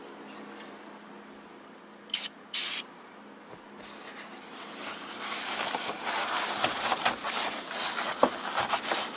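Aerosol glass cleaner spraying in two short hisses about two seconds in, foaming onto a truck's plastic instrument-cluster lens. From about four seconds on, the lens is rubbed and wiped with a steady scratchy scrubbing that grows louder.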